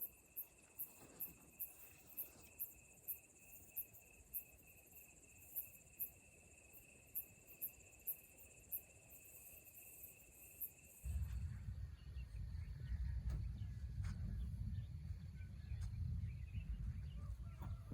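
Crickets chirping in the dark: a high, repeating chirp roughly twice a second over a steady high trill. About eleven seconds in it cuts off suddenly and gives way to a low rumbling noise.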